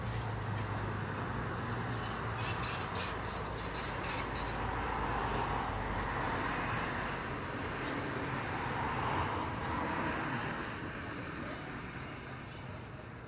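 Wind gusting through trees, a rushing noise that swells in the middle and dies away near the end, with a few faint ticks a few seconds in.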